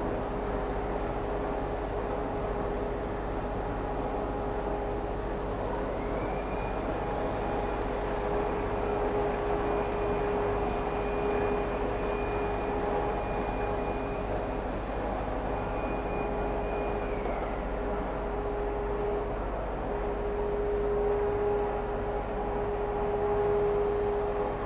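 Cast stretch film production line running: a steady machine drone with a constant hum. A higher whine slides up in about six seconds in, holds, and slides back down and away at around seventeen seconds.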